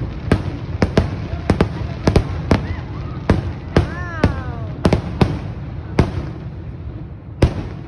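Fireworks display: over a dozen sharp bangs of aerial shells bursting, coming less often as the show winds down, with a last single bang near the end.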